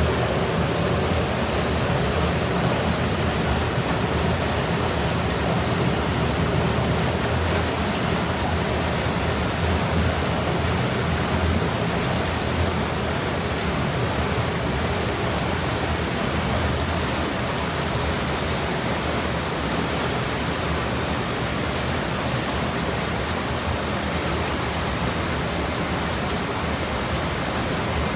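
Steady rush of fast water pouring through a hydropower intake's steel trash rack, churning around the lowered tines of the automatic rake cleaner.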